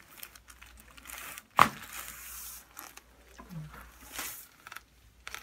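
Rustling of a patient shifting and turning over on a padded chiropractic table, with one sharp knock about a second and a half in.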